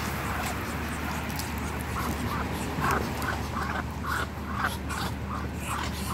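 Muscovy ducks giving a run of short, soft calls, about three a second, starting about two seconds in.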